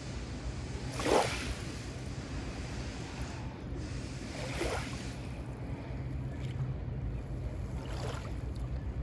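Small waves lapping onto a pebble lakeshore in three brief washes, a few seconds apart, over a steady low rumble of wind on the microphone.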